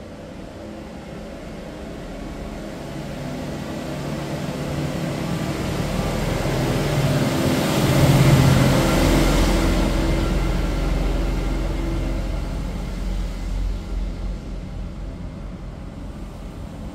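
Engine noise of a passing vehicle, building gradually, loudest about halfway through, then fading away.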